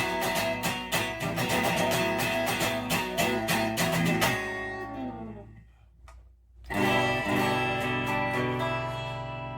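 Warmoth Custom Shop Stratocaster electric guitar with Lindy Fralin pickups played through an amp: a run of quick picked notes that fades out after about five seconds, then a single chord struck about seven seconds in, left to ring and slowly die away.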